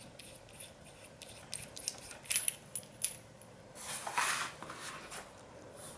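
Small metallic clicks and ticks as a diesel injector's nozzle retaining nut is unscrewed by hand from the injector body. About four seconds in, a short scraping rustle as the nut is set down on cardboard, with a few more light clicks near the end.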